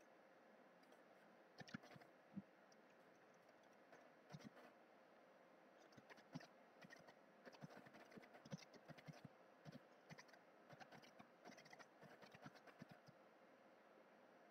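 Faint typing on a computer keyboard: irregular runs of short keystroke clicks, starting about a second and a half in and stopping shortly before the end.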